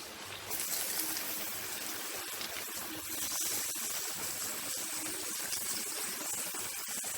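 Raw chicken pieces sizzling in hot oil in a kadai as they go in, a steady hiss with small crackles that starts about half a second in.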